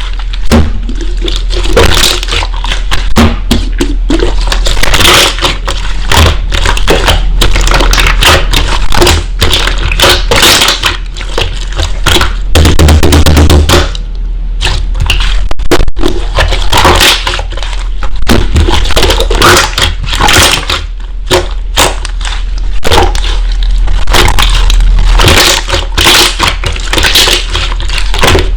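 Slime being squeezed and pressed by hand, giving dense, continuous crackling and popping.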